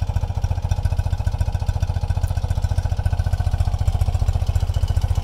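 1976 BMW R60/6's air-cooled flat-twin (boxer) engine idling steadily through its twin exhausts, an even low exhaust beat, with the idle set low.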